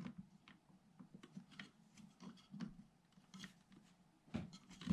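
Faint, scattered small clicks and snips: wire cutters cutting the leads off an old rocker switch, amid light handling of the wires.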